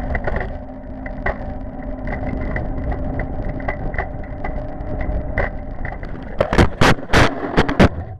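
Scooter rolling over pavement with steady road noise, a low steady hum and light ticks over bumps. About six seconds in, a quick run of loud bangs and scrapes as the scooter crashes and hits the road.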